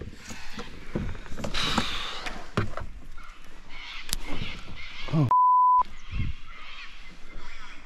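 Censor bleep: a steady pure beep about half a second long, some five seconds in, masking a swear word, with a man's short exclamations just before and after it.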